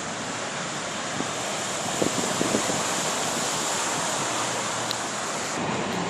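Steady rushing wash of deep floodwater as a semi-truck ploughs through it.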